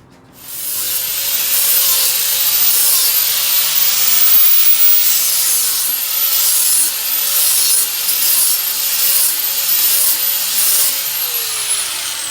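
Electric angle grinder grinding metal: a loud rasping hiss over a motor whine that sags and recovers again and again as the disc is pressed into the work. The whine winds down as the tool is switched off near the end.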